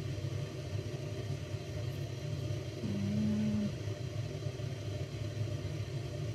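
A steady low background rumble, with a brief low hum about three seconds in.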